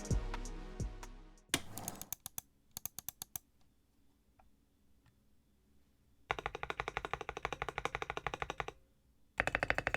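Typing on a Zuoya GMK67 mechanical keyboard with unlubed Matcha Green linear switches, XDA keycaps and a three-layer tape mod, meant to give a deeper, thockier sound. A few single keystrokes come first, then after a pause two fast runs of typing split by a short break. Music fades out at the very start.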